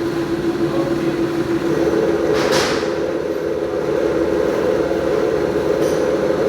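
Milling machine running steadily with a constant humming tone, and a short hiss about two and a half seconds in.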